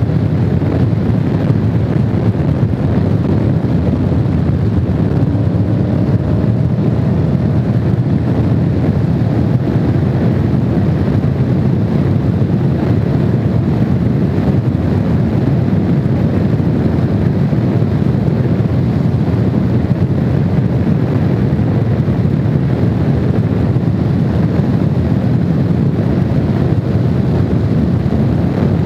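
Honda VFR750's V4 engine running at a steady cruise under a constant rush of wind on the microphone while riding at speed.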